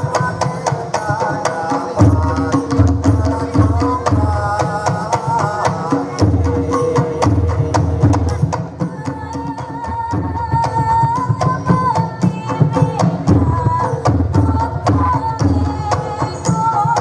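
Dolalak dance accompaniment: frame drums and drums beating a fast, steady rhythm under a continuous melody line.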